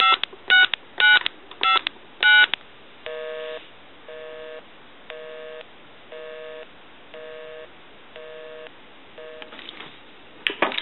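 Touch-tone keypad of a TA-1042A military field telephone dialing five digits, about one tone every half second, followed by a busy signal: a low two-tone beep about once a second, seven times. The busy signal comes back because the number dialed is the phone's own shop line, which is in use. A few handling clicks near the end as the handset is picked up.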